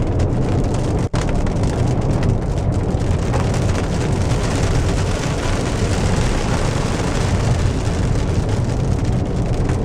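Heavy rain and hail hitting a car's roof and windshield as a loud, steady hiss over the low rumble of the car driving. The sound cuts out for an instant about a second in.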